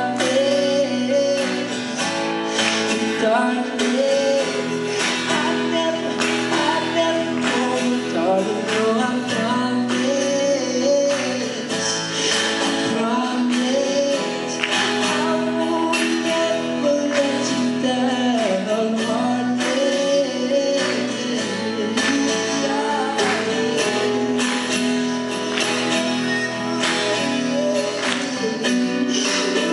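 A man singing a song live, accompanied by strummed acoustic guitars.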